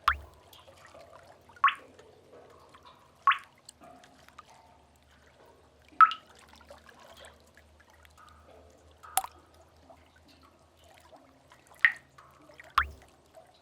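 Water drops dripping one at a time into a pool in a sea cave: seven single plinks at irregular intervals, about a second and a half to three seconds apart, the last two close together, over a faint low background.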